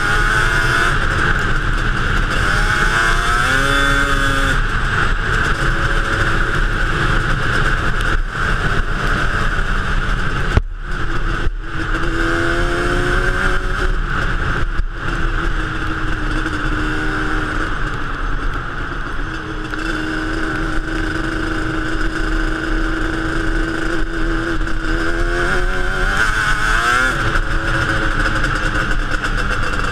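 Yamaha Banshee ATV's 350 cc twin-cylinder two-stroke engine under way, its pitch rising and falling again and again as the throttle is opened and eased off. There is a short break in the engine sound about eleven seconds in.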